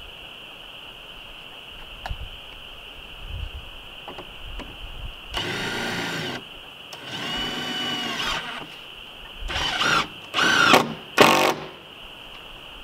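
Cordless drill driving screws to fasten battens onto board-and-batten siding: five short runs of the motor, each speeding up and slowing, the last three quick and loudest.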